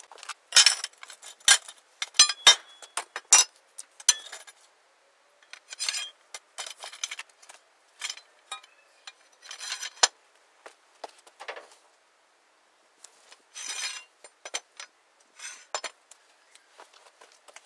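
Metal pipes clinking and knocking against each other as they are handled and fitted together into a pipe stand. The sharp clanks come in groups, thickest in the first few seconds, with short pauses between.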